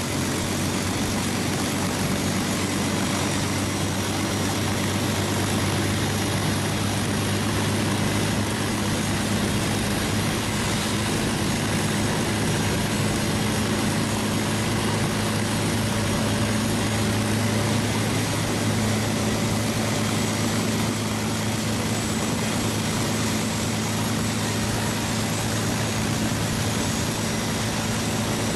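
P-51D Mustang's Packard Merlin V-12 engine idling steadily on the ground, its propeller turning.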